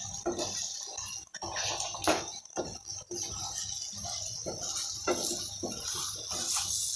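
Wooden spatula tapping and scraping in a nonstick frying pan, with irregular strokes about once or twice a second, as frying egg is broken up and scrambled. A steady faint frying sizzle runs underneath.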